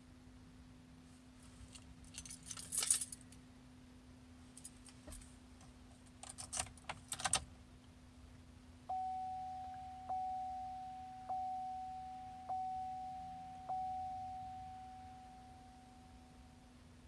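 Keys jangling and clicking at the ignition of a 2010 Chevrolet Silverado, with no starter click or cranking in answer: the truck's no-start, no-crank fault. About nine seconds in, the dash warning chime sounds five times, evenly spaced, each tone fading away.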